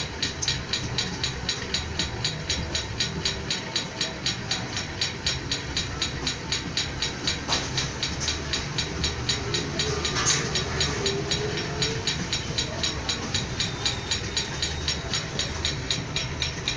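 Steady mechanical clatter, about five even clicks a second over a low rumble, running without a break.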